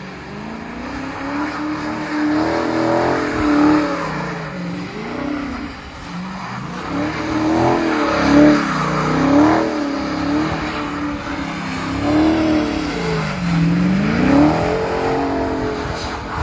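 Car engine revving up and down again and again, its pitch rising and falling every second or two, as the car slides and spins its wheels in snow.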